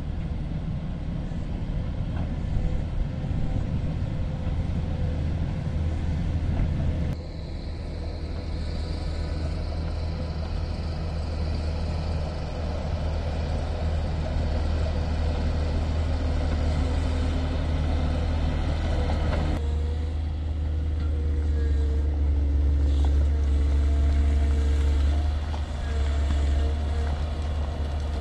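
Diesel engine of a Cat 140M motor grader running, a steady low drone whose tone changes abruptly twice.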